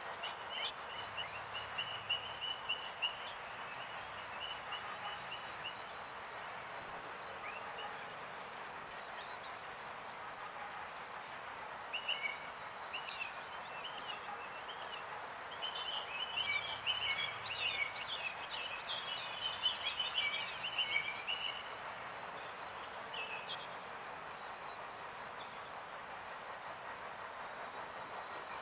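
Outdoor park ambience: a steady, high, pulsing trill runs throughout over a soft wash of background noise, with short bird chirps coming in through the middle stretch.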